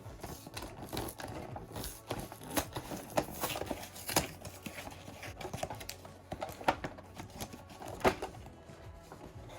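Cardboard and plastic toy packaging being handled and torn open: irregular crinkling, rustling and sharp clicks and snaps throughout.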